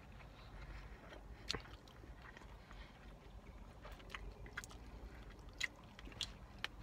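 Quiet, close chewing of sushi, with a few sharp clicks scattered through, the loudest about a second and a half in and again near the end.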